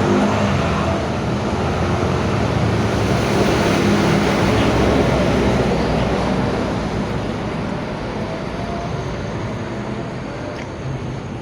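Steady running noise of a motor vehicle on the move: a low engine hum under a constant rushing of road and wind noise, easing off slightly near the end.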